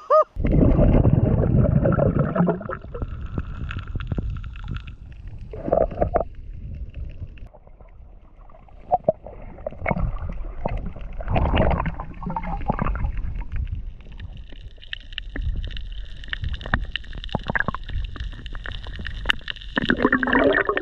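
Muffled underwater sloshing and gurgling from an action camera held underwater, with irregular knocks and bursts of water noise, loudest in the first couple of seconds. Faint steady high tones run through the second half.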